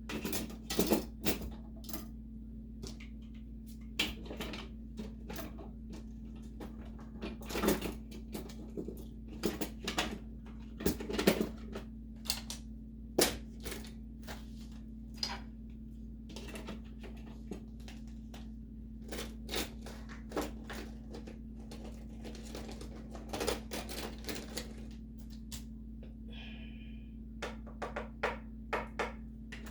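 Kitchen knives being laid into a plastic drawer organizer tray: irregular clicks and clacks of blades and handles against the plastic and each other, with a steady low hum underneath.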